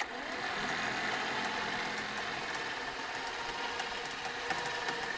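An engine or motor running steadily at an even speed, with a few light ticks; it cuts in abruptly.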